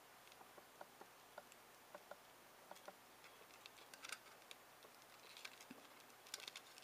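Near silence broken by faint, scattered clicks and ticks as fingers work at the thin casing of a cheap USB hard drive enclosure, prying its halves apart. The clicks bunch up about four seconds in and again near the end.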